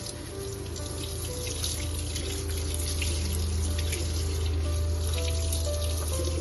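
Running water that starts suddenly and keeps going steadily, heard over music with sustained notes and a steady deep bass.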